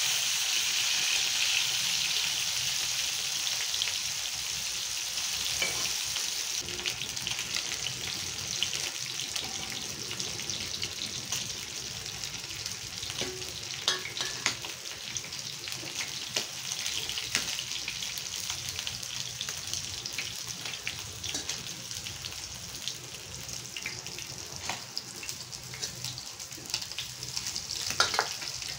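Fish pieces shallow-frying in oil in a cast-iron tawa: a steady sizzle full of small crackling pops, loudest at first and easing off gradually. A few sharp metal clicks of tongs come near the end.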